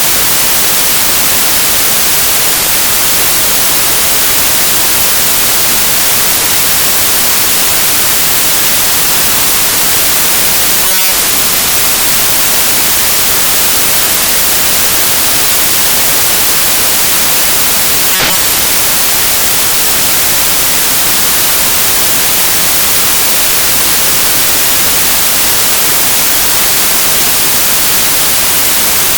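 Loud, steady static hiss like white noise, with a brief break about eleven seconds in and a faint click a few seconds later.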